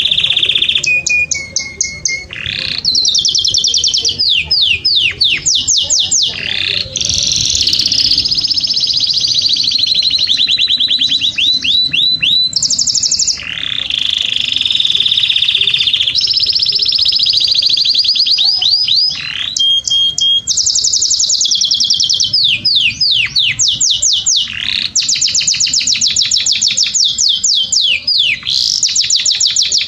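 Male domestic canary singing a long, unbroken song: a chain of rapid trills and rolls, each a run of fast repeated notes or a held buzzing tour, switching to a new phrase every one to three seconds. This is the kind of song played to rouse canaries to breed.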